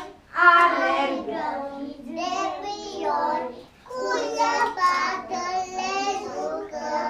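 A group of young children singing together in phrases, with short pauses for breath.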